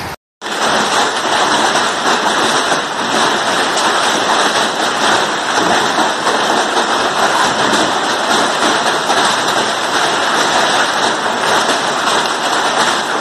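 Heavy hailstorm: hail and rain pelting the ground in a dense, steady din. The sound drops out for a split second at the very start, then runs on unbroken.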